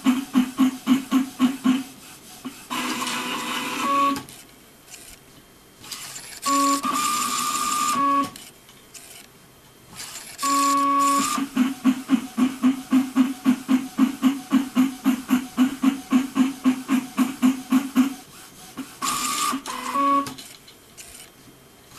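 Flatbed inkjet printer mechanism at work while printing, with its separated DC paper-feed motor running on its own: stretches of even, rapid pulsing, about five a second, alternate with short runs of a second or two of steady motor whine.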